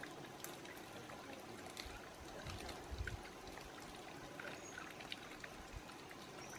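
Faint, steady outdoor hiss with scattered light clicks and a few soft low thumps.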